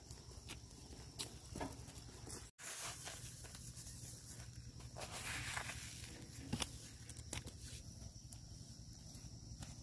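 Scattered soft crunches and taps of footsteps and a bamboo dibble stick jabbing planting holes in dry, burned ground, over a steady faint hiss.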